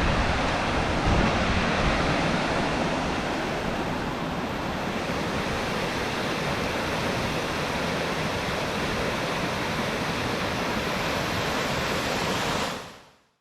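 Steady rushing of running water with wind buffeting the microphone, heaviest in the first couple of seconds, fading out near the end.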